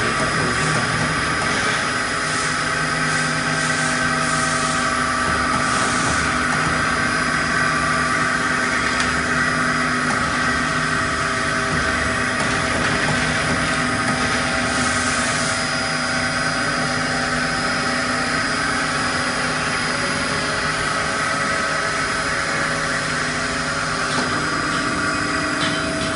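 Vacuum cream mixer's electric motors running steadily, a constant mechanical hum with a high whine over it.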